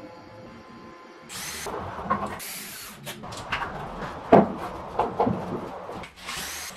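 Handling noise from a hand tool being moved about at a wooden wall: irregular clattering and knocks, the loudest about four seconds in, with short bursts of hiss.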